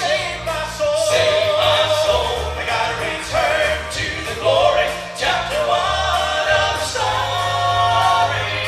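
Southern gospel group singing in close harmony with instrumental accompaniment and a steady bass line.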